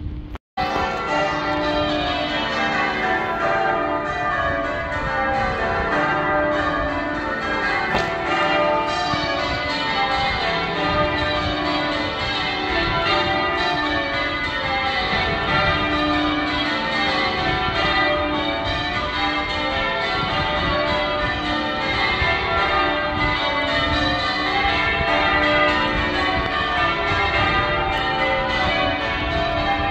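Manchester Cathedral's church bells being rung full-circle in change ringing: a continuous stream of overlapping bell strikes, one bell after another in shifting order. There is a momentary dropout about half a second in.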